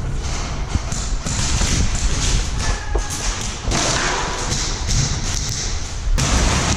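Repeated dull thuds and rustling from an airsoft player moving with a body-worn camera: footsteps and gear knocking against the microphone.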